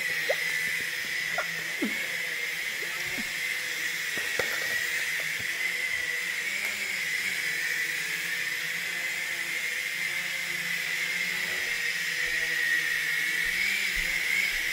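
Small toy quadcopter drone hovering, its propellers making a steady high-pitched whine over a hiss, the pitch wavering slightly as it drifts and holds height.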